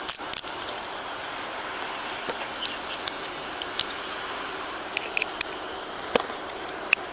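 Scattered light metallic clicks and jingles, in small clusters, over a steady background hiss.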